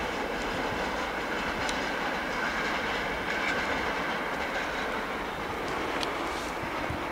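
Loaded container freight train's wagons rolling away on the track: a steady rumble of wheels on rail with occasional clicks, growing slightly fainter near the end.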